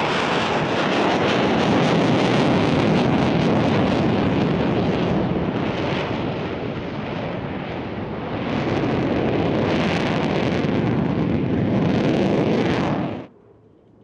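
Jet engine noise of an F-16 fighter flying its display, loud and steady, easing off slightly midway and swelling again before cutting off suddenly near the end.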